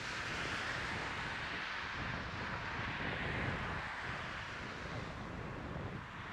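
Three Victorian Railways steam locomotives (D3 639, A2 986 and R761) heading one train, heard in the distance as a steady exhaust roar as they approach, with wind buffeting the microphone.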